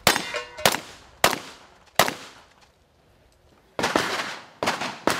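A string of sharp, loud bangs, each fading in a short echo. The first four come evenly, about two-thirds of a second apart. After a pause of about a second and a half, several more follow in quicker succession.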